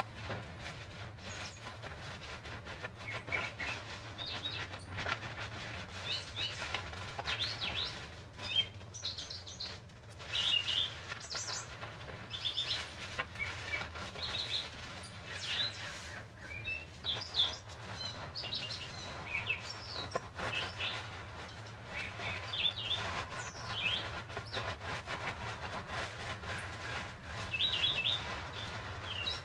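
Songbirds chirping and calling, many short high chirps overlapping and spread throughout, over a steady low hum.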